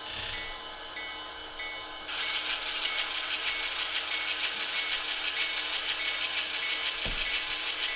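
Sound-decoder diesel engine of an HO-scale EMD GP40-2 model locomotive, playing through its onboard speaker as the model runs. About two seconds in the engine sound grows louder, with a rapid even chugging, as the throttle is opened. A high ping repeats about twice a second, and a single low knock sounds about seven seconds in.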